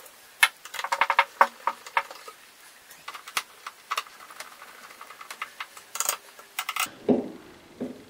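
Screwdriver driving screws into a hard plastic cover inside a refrigerator: irregular light clicks and small plastic rattles, with a couple of duller knocks near the end.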